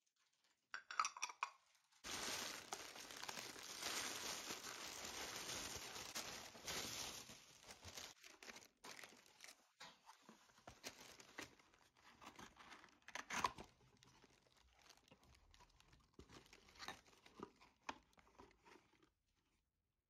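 Cardboard box and packaging rustling and crinkling as a box of small ceramic bowls is handled and opened, followed by scattered light clicks of the bowls being moved. There is a short clink about a second in and a single sharp knock of ceramic about two-thirds of the way through.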